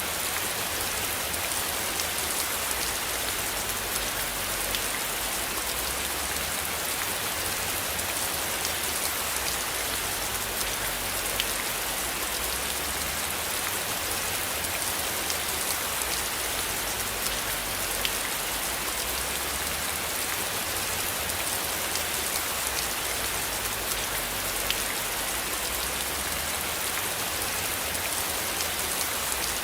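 Steady rain falling, an even hiss dotted with the ticks of individual drops, over a faint low rumble that swells and fades.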